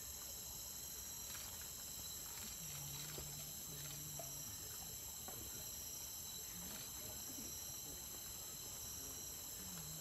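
Rainforest insects droning steadily in several high-pitched bands, faint, with scattered soft ticks.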